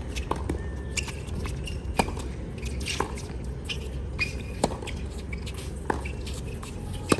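Tennis rally on a hard court: the ball struck by rackets and bouncing, as sharp pops about once a second, the loudest near the end, over a steady low rumble.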